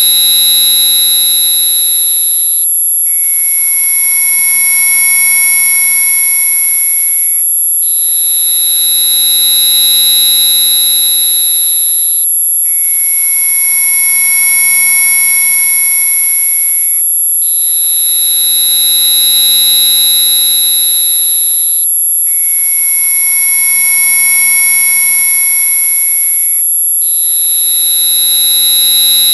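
Synthesized repellent tone track: a loud chord of steady high-pitched electronic tones, alternating between two sets of pitches about every five seconds with a brief break at each change, and a slight swell and fade in loudness.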